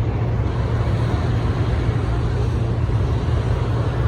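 Steady low engine rumble with a continuous hum and an even wash of outdoor noise, no single event standing out.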